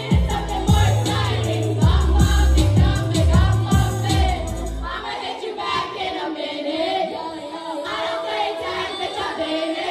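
A song with sung vocals over a heavy bass beat, played loud through a party sound system. About halfway through, the bass and beat drop out and the vocals and melody carry on alone.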